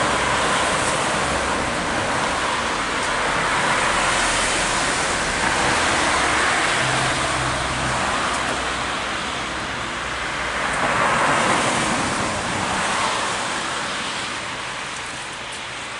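Road traffic: cars passing one after another, their tyre noise swelling and fading, loudest about eleven seconds in and dying away near the end.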